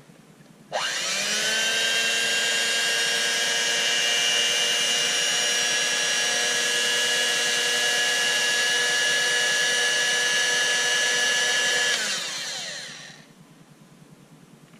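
Electric hand mixer motor switched on under a second in, whining quickly up to speed and running steadily for about eleven seconds, then switched off, its pitch falling as it winds down.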